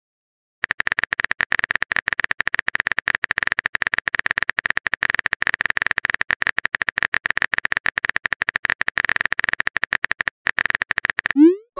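Texting-app keyboard typing sound effect: rapid, even clicks that go on for about ten seconds. Near the end comes a short rising swoosh, the app's message-sent sound.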